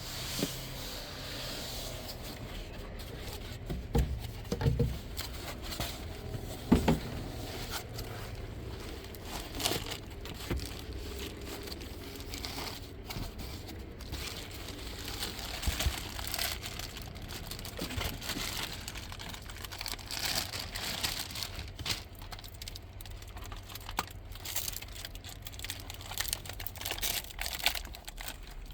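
Paper leaflets and packaging rustling and crinkling as they are handled, with scattered knocks and taps, strongest a few seconds in. A low steady hum runs underneath and stops near the end.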